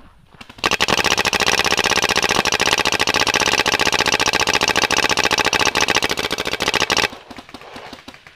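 2013 Proto Reflex Rail paintball marker on uncapped semi-auto firing a rapid continuous string of shots for about six seconds, then stopping abruptly.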